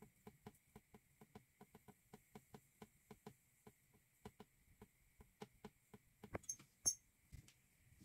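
Paintbrush dabbing oil paint onto stretched canvas: a quick run of soft taps, about four a second, with two sharper clicks a little past six seconds in.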